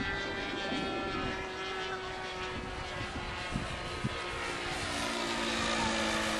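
NGH 9cc single-cylinder two-stroke gasoline engine of a radio-controlled model airplane in flight, running steadily at speed with an 11x7 propeller. The pitch drifts slightly, and the sound grows a little louder about five seconds in.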